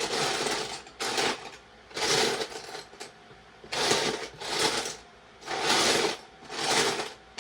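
Loose plastic LEGO pieces rattling and clattering as a hand sifts through them, searching for a brick, in repeated bursts about once a second.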